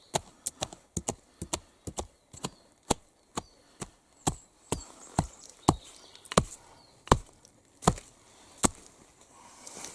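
Axe chopping wood by hand, a series of sharp strikes: quick and uneven at first, then slowing to a steady blow about every two-thirds of a second.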